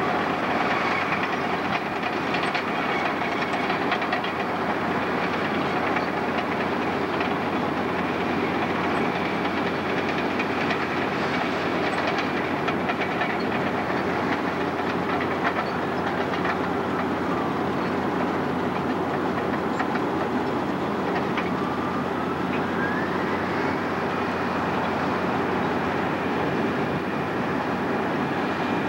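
Caterpillar D8N crawler dozer working and pushing dirt: its diesel engine runs steadily under load amid the clanking of steel tracks, with a couple of squeals that slide in pitch.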